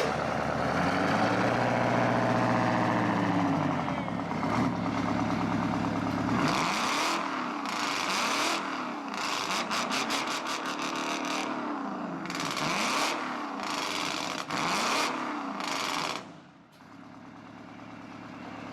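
Detroit Diesel engine in a rat rod running, then revved again and again from about six seconds in, each rev rising and falling with a sharp crackling exhaust. It drops back to idle near the end.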